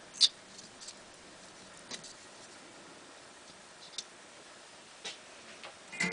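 Scattered light clicks and taps, about one a second, the sharpest a quarter second in, from thin metal bus wire and small tools being handled on a solar panel under construction.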